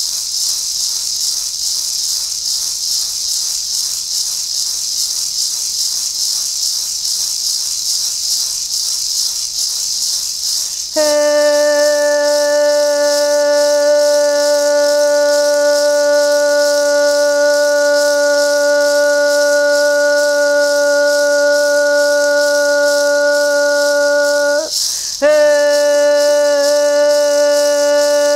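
Seed-filled gourd maraca shaken continuously in a steady rattle. About eleven seconds in, a woman's voice joins on one long held chanted note, breaking off briefly near the end and coming back on the same pitch over the rattle.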